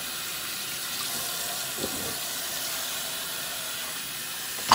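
Kitchen faucet running steadily into a stainless-steel sink while dishes are rinsed under the stream. A faint knock about two seconds in and a sharp knock at the very end.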